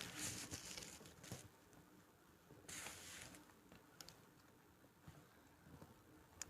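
Slab of gym chalk with a cornstarch topping being crushed: a sharp crack, then soft crunching and crumbling for about a second and a half, a second short burst of crunching about three seconds in, and a few faint ticks of crumbs near the end.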